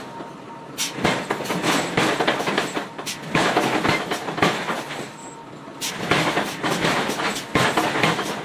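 Hammer blows forging hot iron bar stock: sharp metallic strikes coming at uneven intervals, a few in quick succession, over a continuous clattering noise.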